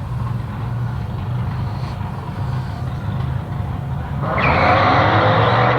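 Drag race cars idling with a low, steady rumble, then about four seconds in a sudden loud rush of engine and tire-spin noise.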